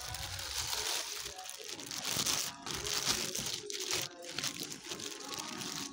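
Paper packing from a boot box crinkling and rustling as it is handled, with an uneven rustle that keeps going.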